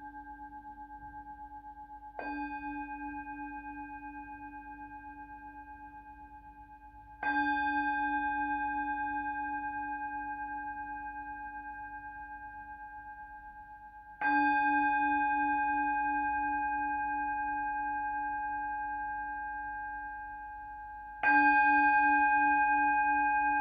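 Tibetan singing bowl struck four times, several seconds apart. Each strike rings on with a pulsing low tone and clear higher overtones, slowly fading.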